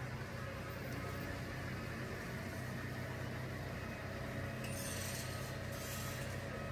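New Holland hydraulic excavator demolishing a building: its diesel engine runs steadily, and shortly before the five-second mark scraping and crunching of broken concrete begins.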